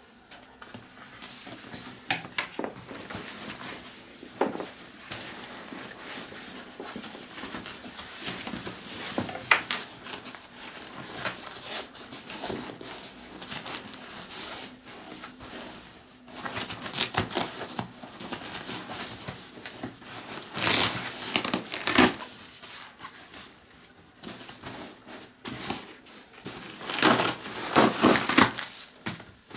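Hands unpacking and handling a new Vanguard Up-Rise 28 camera bag and its packaging: crinkling and rustling in irregular bursts, loudest about two-thirds of the way through and again near the end.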